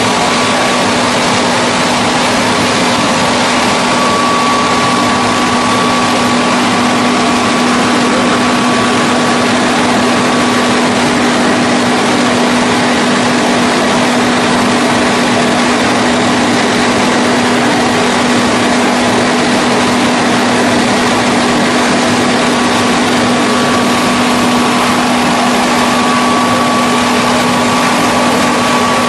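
Hydraulic single-spindle veneer peeling lathe running as it peels face veneer from a turning log: a steady, loud machine noise with a constant low hum and a fainter higher tone.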